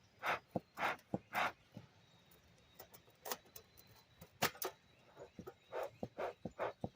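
Bee smoker's bellows pumped in a run of short puffs of air, with light clicks between them. The smoker is being worked to revive charcoal fuel that the keeper thinks got wet.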